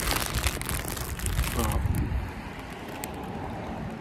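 Plastic chip packet crinkling as it is handled and put aside, for about two seconds, over a steady low background rumble.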